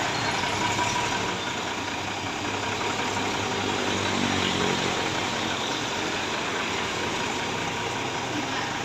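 A tow truck's engine running steadily at idle.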